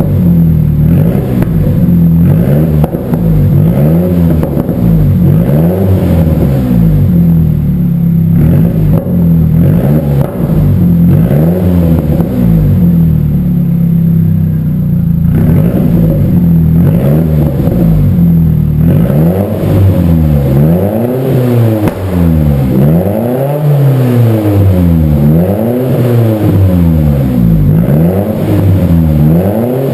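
Nissan 200SX S14A's turbocharged SR20DET four-cylinder engine running, heard at the exhaust, on its first run after a head gasket change and head rebuild. In the second half its engine speed rises and falls in an even, repeated swing, roughly once every second and a half.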